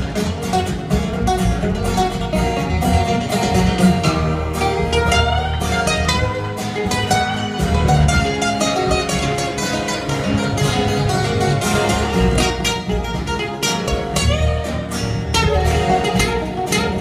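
Two acoustic guitars playing live together, a busy picked instrumental passage with no singing.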